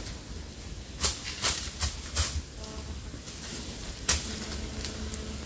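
Branches and leaves rustling and scraping as a man climbs in a tree, with several short, sharp crackles, the last about four seconds in.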